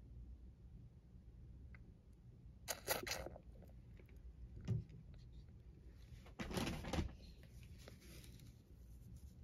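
Soft handling noises over a low steady hum: a brief rustle about three seconds in, a soft low thump near five seconds, and a longer rustle around six to seven seconds, as the feeding bottle is taken away and the neonate kitten is shifted in the hand.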